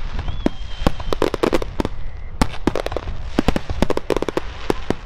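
Fireworks grand finale: bursts banging in quick succession, several per second, with crackling in between. A short, faint high whistle comes about half a second in.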